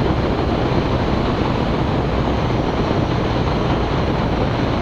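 Steady cockpit noise of a Zenith CH 650 light aircraft on final approach: the 118-hp UL350i engine droning at reduced power under even airflow and wind noise.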